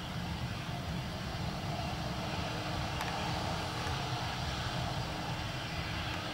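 Fokker 70's two rear-mounted Rolls-Royce Tay turbofans running steadily at low power, a continuous jet rumble and hiss that grows a little louder about a second in.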